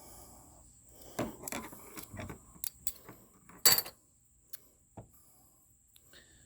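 Computer parts being handled: a run of small clicks, knocks and clatter, the loudest a sharp click about three and a half seconds in, then a couple of single ticks.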